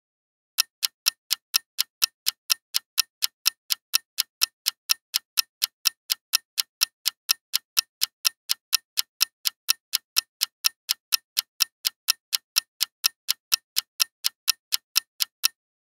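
Clock-tick sound effect of a quiz countdown timer, ticking evenly about four times a second. It starts about half a second in and stops just before the answer is due.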